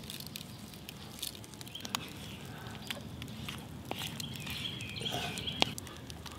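Quiet outdoor ambience with scattered small clicks and taps from food being spooned and tipped into a wooden bowl, and a bird chirping about four to five seconds in.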